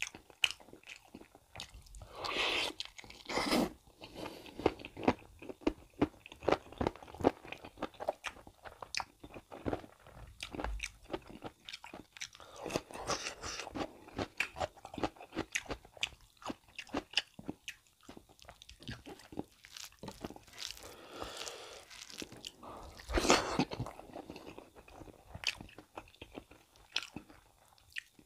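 Close-miked eating by mouth: a man chewing beef curry and rice, with many quick wet mouth clicks and smacks. There are louder stretches of chewing about two seconds in and again near the end.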